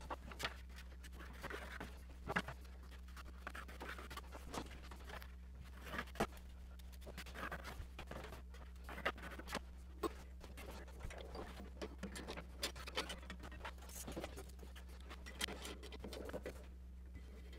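Light handling noises: wooden paddle blanks and a plywood template being picked up, shifted and set down on a metal machine table, giving scattered small knocks, clicks and scrapes. A steady low electrical hum runs underneath.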